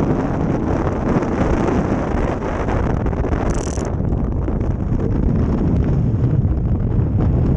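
Wind buffeting the microphone of a fast-moving ice boat, over the rumble of its runners on the lake ice. A brief higher hiss cuts in about halfway through.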